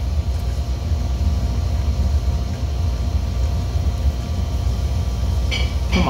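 Steady low rumble with a faint constant hum, the even drone of machinery running in the room.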